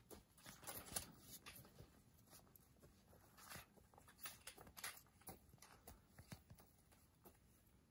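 Near silence, with faint scattered clicks and rustles at irregular intervals.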